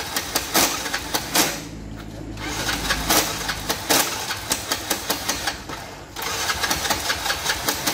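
A motorbike's electric starter cranks the engine in repeated tries, with a rapid rhythmic clicking of about three to four a second and a steady low hum in the middle, and the engine never catches. It is a no-start that the mechanic puts down to a dirty, clogged fuel tank.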